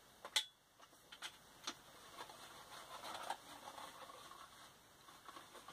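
Camera tripod being handled: a few sharp clicks and knocks in the first two seconds, then faint rustling and scraping.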